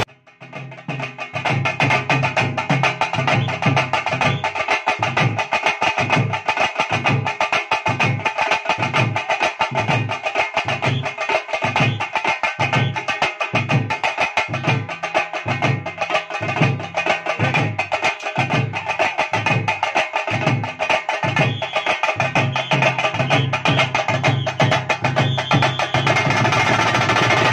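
Street percussion band of Nashik dhol and a drum set playing a fast, driving rhythm: rapid stick strokes over a pulsing bass drum beat. The drumming comes in about a second in, after a brief silence.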